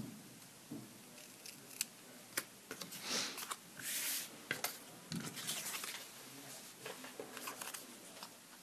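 Small scissors making short snips in white cardstock while fussy-cutting a stamped image, with paper scraps rustling and sliding on a cutting mat; the longest rustles come about three and four seconds in.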